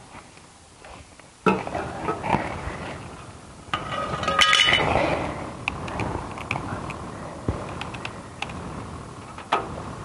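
Hard objects clinking and knocking as they are handled: a sudden clatter about a second and a half in, a louder scraping stretch with a brief squeak around the middle, then scattered clicks.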